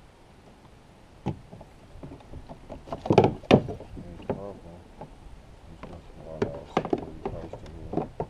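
Scattered hollow knocks and thumps on a fishing kayak's hull as the paddle and gear are handled. The loudest pair comes about three seconds in, and a few more follow near the end.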